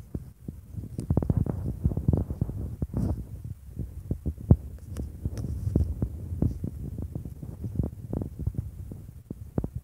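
Wind buffeting a phone's microphone: an uneven low rumble broken by many short, irregular thumps.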